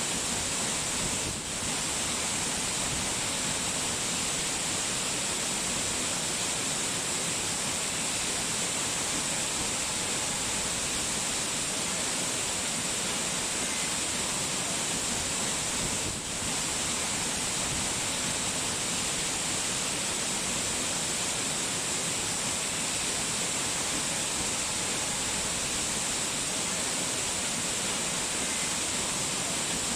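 Steady rushing water, an even unbroken hiss with two brief dips in level, about a second and a half in and again around sixteen seconds.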